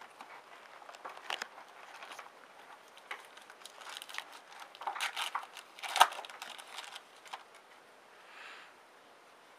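Trading cards and pack wrapper being handled: intermittent rustling and crinkling with short clicks, and one sharp click about six seconds in.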